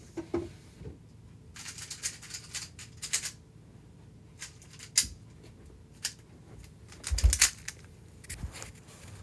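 Close handling noises: bursts of rustling and scattered sharp clicks, with a heavier thump about seven seconds in, the loudest sound.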